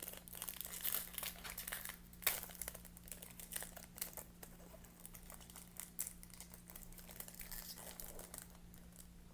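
Foil wrapper of a Topps Chrome baseball card pack crinkling and tearing as it is worked open with difficulty, a run of irregular crackles with a sharper one about two seconds in.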